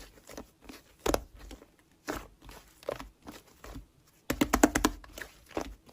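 Slime being pressed and squeezed by hand, crackling and popping in scattered bursts, with a denser run of crackles about four seconds in.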